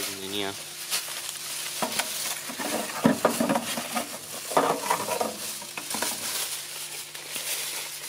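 Aerosol cans and foil-wrapped objects being handled and set down inside a microwave oven cavity: scattered knocks and rustles, loudest a few seconds in, over a steady low hum and hiss.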